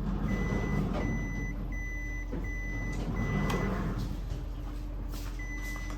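Epson L6290 inkjet printer beeping: a string of short, even high beeps, a little over one a second, stopping about four seconds in and starting again near the end. Under the first beeps the printer's mechanism runs with a rumbling whir.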